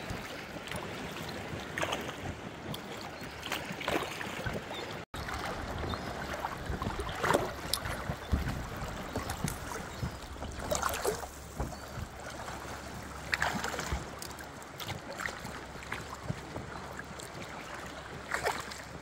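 Kayak paddle strokes in shallow lake water: a splash and drips from the paddle blade every couple of seconds over a steady wash of water.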